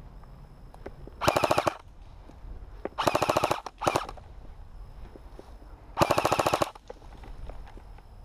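Electric airsoft rifle firing four short full-auto bursts, each a rapid even rattle of shots. The first comes about a second in, two more close together around three to four seconds, and the last about six seconds in.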